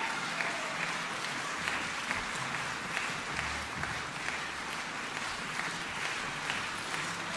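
Concert-hall audience applauding steadily, many hands clapping at once.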